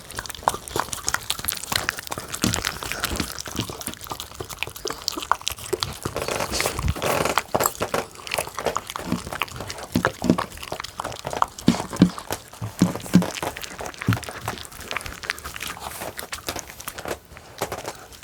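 A dog eating soft fresh-cooked dog food, with a rapid run of chewing, smacking and licking clicks.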